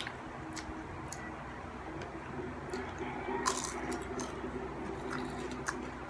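Close-up eating sounds from a bread roll being chewed: soft wet mouth noises with scattered small clicks and one louder crackle about three and a half seconds in, over a steady low hum.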